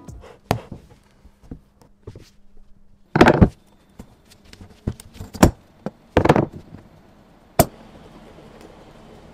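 Old rusty steel spoked tricycle wheel being stripped. A screwdriver prying the rubber tyre off the rim and hands pulling it free make irregular knocks, clicks and scrapes of metal and rubber against the bench. Near the end the bare rim lands with one sharp clank, and a steady faint rattle follows as it wobbles flat on the bench.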